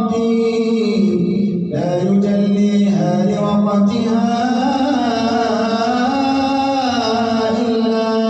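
Male imam chanting Quran recitation in a melodic style, holding long drawn-out notes that slide between pitches, with a brief break for breath about two seconds in.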